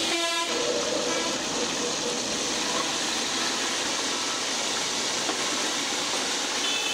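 Batter-coated masala chicken deep-frying in a large wok of hot oil, sizzling steadily with a dense hiss. A vehicle horn sounds briefly at the start.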